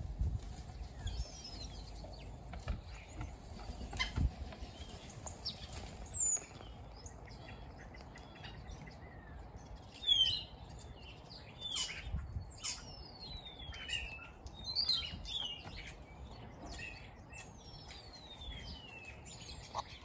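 Starlings calling: short high chirps throughout, and two long whistles that slide down in pitch in the second half.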